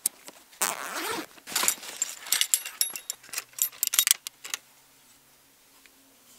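Backpack zipper and rustling nylon fabric as a rifle is drawn out, followed by a quick run of sharp metal clicks and snaps as the folding stock of a CZ 452 .22 LR rifle is swung open and locked. The clicking stops about four and a half seconds in.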